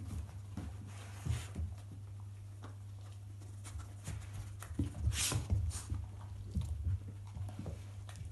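Two dogs snuffling and rooting through a fabric-strip snuffle mat, with irregular sniffing, rustling and chewing noises, a few louder ones past the middle. A steady low hum runs underneath.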